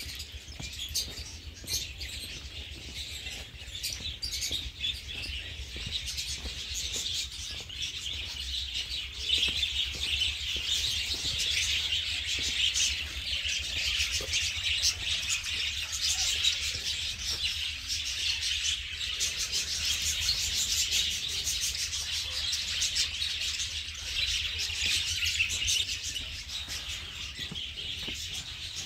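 A dense chorus of many small birds chirping at once, a continuous twittering that swells through the middle and eases near the end, over a low steady rumble.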